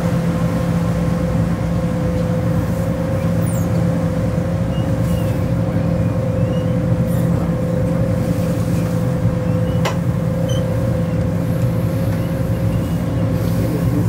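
Tour boat's motor running steadily on board: a low drone with a constant hum tone above it.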